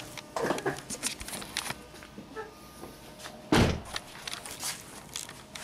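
Driver's door of a 2013 Lincoln MKX shut once with a single solid thud about three and a half seconds in, after some faint rustling.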